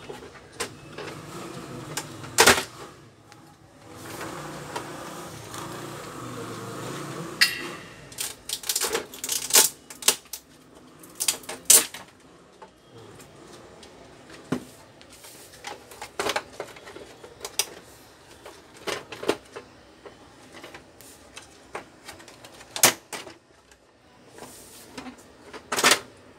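Plastic casing of a Canon iP2770 inkjet printer being pried open: irregular sharp clicks and snaps of the plastic catches and parts, with a few seconds of rustling about a third of the way in.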